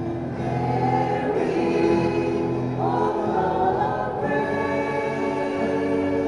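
A choir singing together from song sheets, holding long notes, with the melody stepping up to a higher note about three seconds in.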